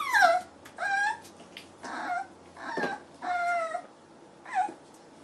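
One-month-old puppies whining: about six short, high cries in a row, each sliding down in pitch.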